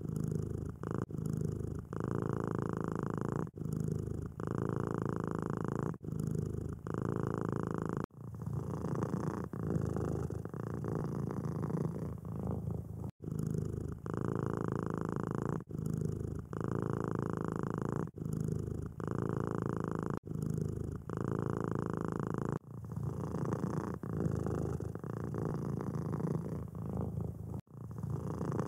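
Domestic cat purring close to the microphone, a steady low purr in long breaths with short gaps between them. A few sudden breaks mark cuts from one purring recording to another.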